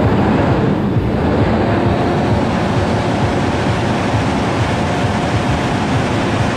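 Two tractors with 6.7-litre Cummins diesels running together, a loud, steady rushing noise over a low rumble.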